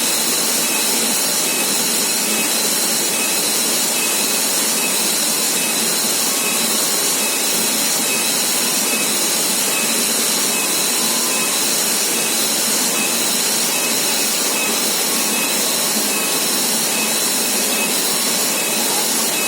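Waterfall: a steady, even rush of falling water, with faint short high chirps repeating through it.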